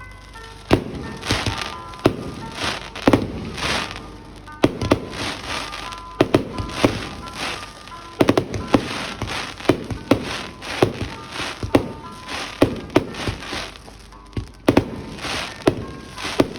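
Fireworks going off in quick succession: sharp bangs, often several a second, each followed by a crackling tail. Music plays underneath.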